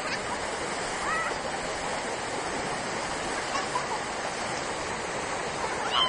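Waterfall rushing steadily, a continuous even roar of falling water, with a couple of faint brief high calls over it.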